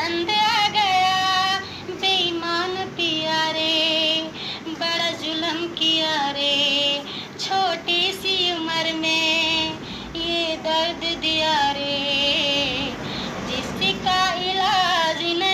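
A young woman singing solo into a microphone, a slow melody of long held notes that waver and bend in ornamented turns, with short breath breaks between phrases.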